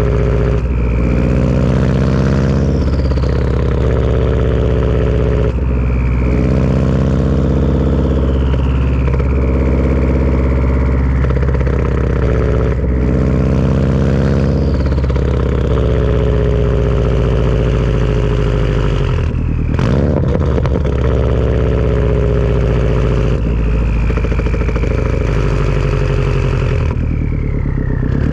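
Turbocharged Subaru engine breathing through a Tomei turbo-back exhaust, its turbo whistle rising and falling again and again over a steady engine note. The note breaks off briefly several times.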